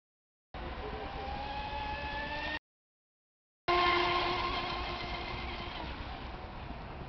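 Model speedboat motor whining at high revs as the boat races across the water, its pitch rising; the sound cuts out twice, then comes back loud and fades as the boat runs away.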